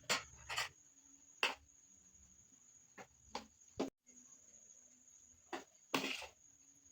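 Close-miked mukbang eating sounds from a meal of rice and beans stew: a series of about eight short, sharp mouth clicks and smacks, with the longest and loudest coming about six seconds in.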